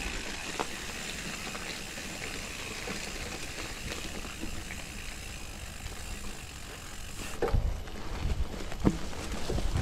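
Mountain bike rolling down a dirt forest trail, its tyres running over leaf litter with the odd small click. In the last two seconds or so it hits rough ground, with a run of heavy thumps and knocks.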